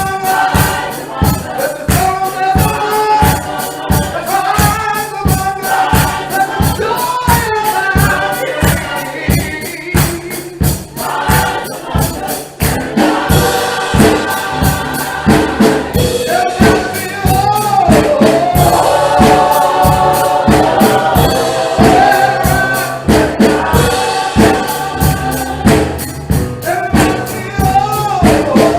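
Gospel choir singing over an upbeat band with a steady, quick beat and tambourine.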